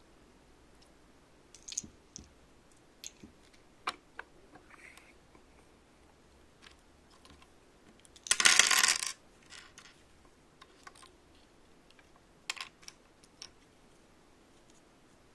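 Small plastic pieces of a Sylvanian Families refrigerator toy set clicking now and then as they are handled, with one short, loud clatter of many small pieces rattling together a little past halfway.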